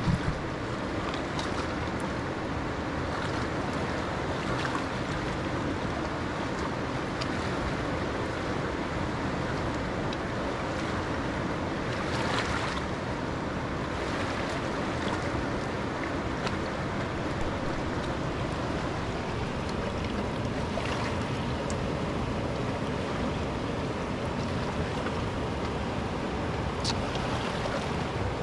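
Steady rushing noise of wind and water, with a few faint clicks scattered through it.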